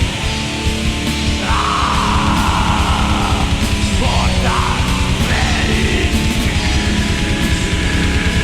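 Orchestral-symphonic black metal: dense distorted guitars and keyboard layers over fast, even drumming, with a harsh shrieked vocal line coming in about one and a half seconds in.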